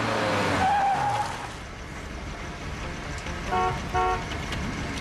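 A car driving up, followed by two short honks of its horn about three and a half and four seconds in.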